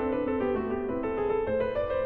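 Background piano music, a quick run of notes.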